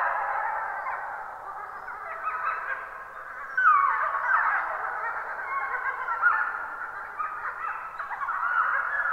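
A pack of wolves howling in chorus: many overlapping long, wavering howls mixed with higher yips. The chorus swells with a falling howl about three and a half seconds in.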